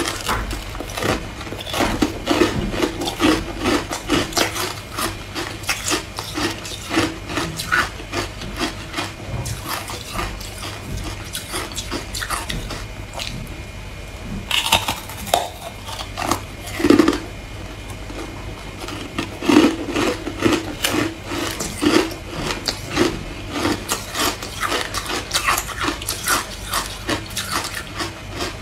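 Close-up crunching of ice coated in matcha powder being bitten and chewed: a dense run of irregular sharp cracks and crunches, with a few louder bites near the middle.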